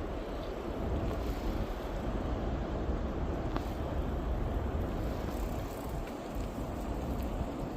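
Steady wind rush buffeting the microphone of a moving bicycle, with a single faint tick about three and a half seconds in.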